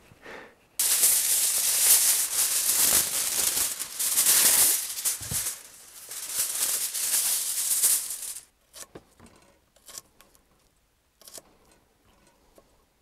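A loud, dense rustle for about eight seconds, stopping abruptly. Then a few light clicks of a knife on a wooden cutting board as pork fat is sliced.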